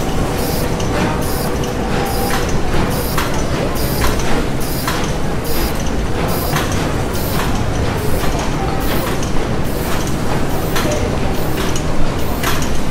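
Industrial machinery ambience: a steady low mechanical rumble with a dense run of sharp knocks, about one or two a second.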